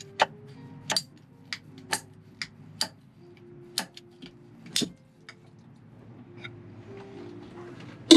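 Ratcheting pipe cutter clicking as it is squeezed shut notch by notch on a black sanitation hose, about ten sharp clicks spaced half a second to a second apart and thinning out, then a louder clunk near the end.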